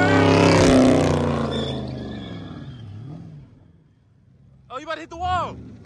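A car's engine running at high revs with its tyres spinning in a burnout, loudest about a second in and then fading away. Near the end, people give two short shouts.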